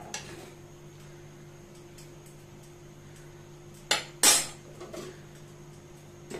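Metal spoon clinking on a non-stick cooking pan, then a loud double clatter of cookware about four seconds in and a glass lid knocking down onto the pan at the end, over a steady low hum.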